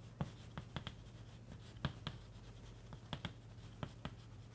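Chalk writing on a blackboard: a quick, irregular series of soft taps and short scratches as letters are written.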